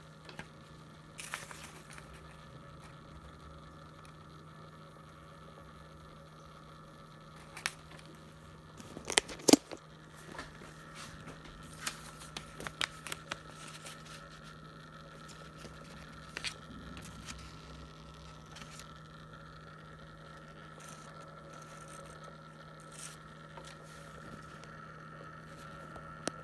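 Paper and nitrile gloves crinkling and scraping against laboratory glassware: scattered sharp clicks and crackles, loudest in a cluster about nine to ten seconds in, over a steady low hum.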